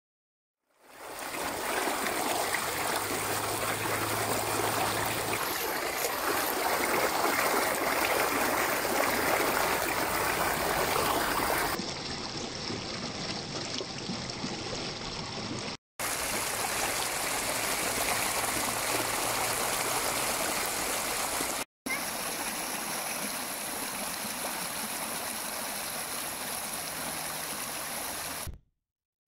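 Flash-flood water rushing and gurgling over stones and gravel in a rain-swollen wadi, a steady loud rush of water. It cuts off briefly twice, about 16 and 22 seconds in, and goes on again each time.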